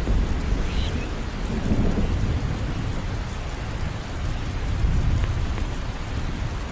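Wind buffeting the microphone outdoors: a steady, uneven low rumble with a faint hiss above it.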